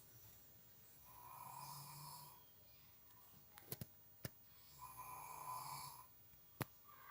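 Faint, slow snoring: two long snores about four seconds apart, with a few sharp clicks between them.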